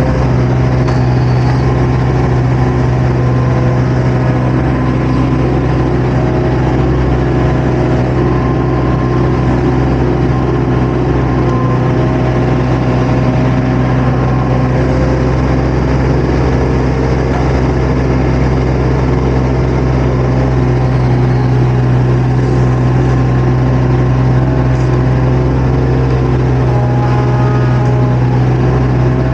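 Diesel engine of a compact construction machine running steadily and loud, heard from the operator's seat, with no change in speed.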